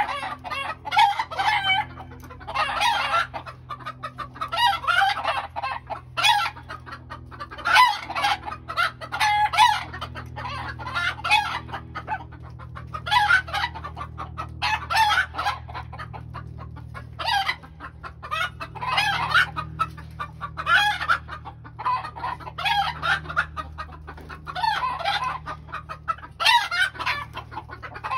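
Chickens of a Bengal fowl flock (grey junglefowl × domestic chicken crosses) clucking and calling, with rooster crowing among the calls. A call comes about every two seconds throughout.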